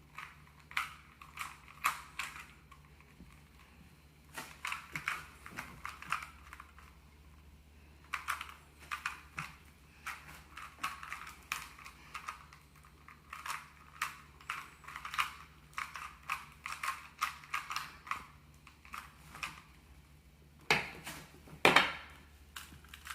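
Plastic Rubik's cube being turned quickly during a timed solve: runs of rapid clicking layer turns broken by short pauses. Two louder knocks come near the end.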